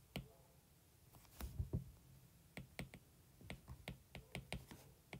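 Faint, irregular clicks of a stylus tip tapping on a tablet's glass screen during handwriting, a short cluster about a second and a half in, then a steadier run of taps through the second half.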